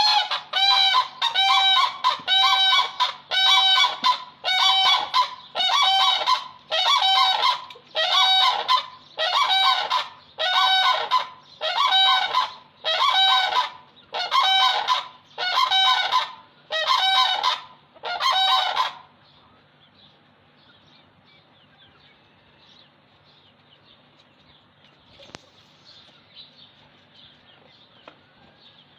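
Demoiselle crane calls: loud, rolling honks repeated about once a second, each with the same arched shape. They stop about two-thirds of the way through, leaving a faint background with a few faint bird chirps.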